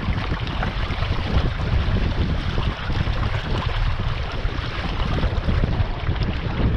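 Wind buffeting the microphone over water rushing and splashing along the hull of a small sailboat under way.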